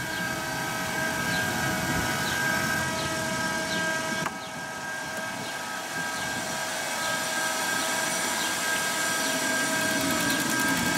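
KingTech K-310 model jet turbine in its start-up sequence: a steady high whine with a rush of air, with a sharp click about four seconds in and the sound building slightly toward the end.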